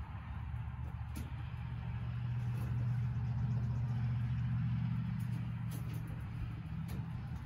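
Low engine hum that swells over a few seconds and then eases off.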